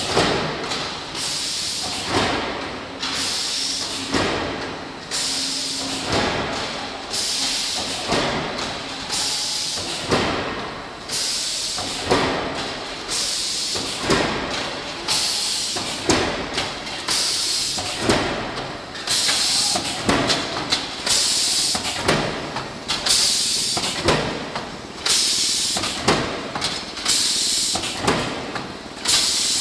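Pneumatic air feeder cycling about once a second, each stroke starting sharply with a hiss of exhausting air that fades before the next.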